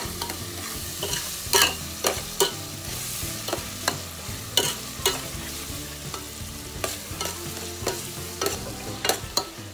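Chopped tomatoes and onions frying in an aluminium pot, sizzling, while a utensil stirs them and clinks and scrapes against the pot at irregular intervals.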